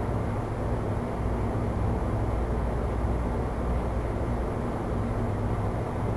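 Steady low rumble and hiss of background noise with a faint hum, even throughout, with no distinct knocks or swishes standing out.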